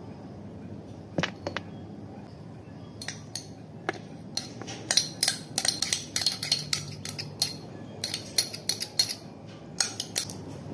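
Spoon tapping and scraping against a small measuring cup to work out the last of the thick sweetened condensed milk: a couple of knocks about a second in, then a fast, irregular run of sharp clinks from about three seconds in.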